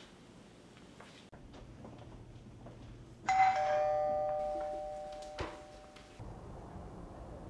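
Two-note ding-dong doorbell chime, rung once about three seconds in, a higher tone then a lower one, ringing out and fading over about three seconds. A short thump sounds near the end of the ring.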